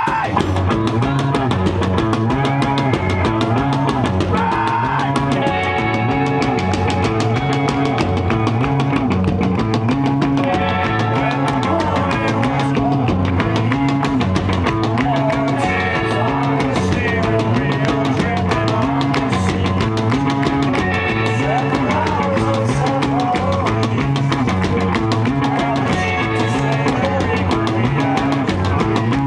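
Live rock band playing a song: electric guitar and bass over a driving drum kit, with a riff repeating in the low end.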